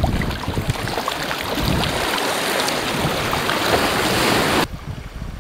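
Sea water washing and hissing around a kayak, with small splashes, over wind buffeting the microphone; the sound drops off suddenly near the end.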